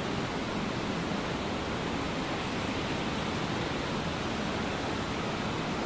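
Steady rush of flowing water from the cave's underground stream, an even hiss with no breaks.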